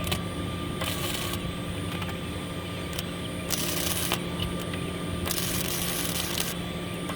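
A steady mechanical hum, with three short bursts of hiss about one, three and a half, and five seconds in.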